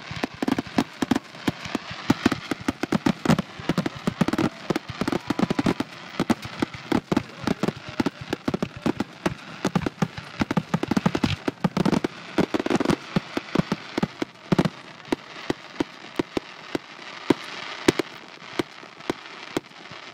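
Fireworks display: a rapid, continuous string of sharp bangs and crackles from aerial shells bursting. The bangs come thickest and deepest in the first three quarters, then thin out for the last few seconds.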